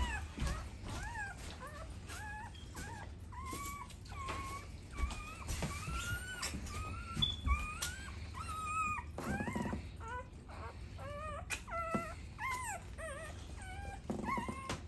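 Dog whimpering: a long run of short, high whines that rise and fall, over the rustle of a towel being rubbed briskly.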